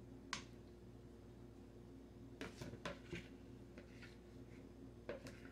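Chunks of root vegetables dropped into broth in a pressure cooker's inner pot: a few faint short plops, one about half a second in, several close together around the middle and one near the end, over a steady low hum.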